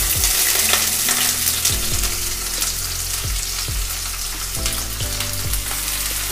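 Sliced onions sizzling in hot oil in a non-stick kadai: the hiss jumps up as the onions are tipped in, then carries on steadily as they fry and are stirred with a spatula.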